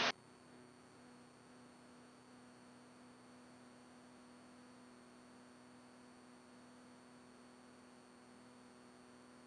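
Near silence: only a faint, steady electrical hum with a few thin, steady tones on the audio line.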